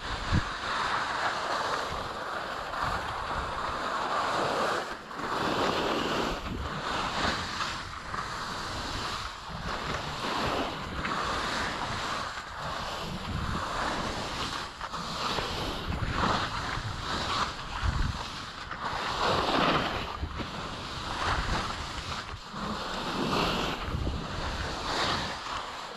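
Skis hissing and scraping on firm, not yet softened snow during a downhill run, swelling and fading with each turn every second or two, with wind rushing over the microphone.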